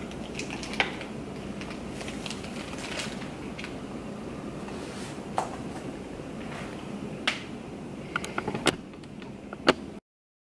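Camping and survival gear being set down and handled on a wooden tabletop: a few scattered knocks and clicks, one about a second in and a cluster near the end, over a steady faint room hiss. The sound then stops dead.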